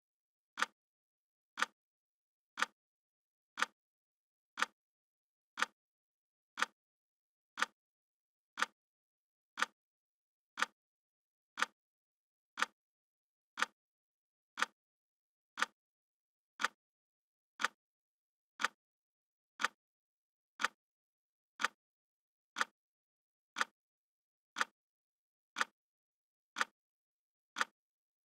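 Clock ticking once a second, each tick short and sharp with silence between, counting down the seconds of a timer.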